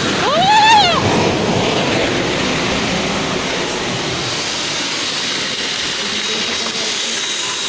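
A person's short cry about half a second in, then a steady rushing noise of a rain-soaked slope giving way: soil and debris sliding down, mixed with running rainwater.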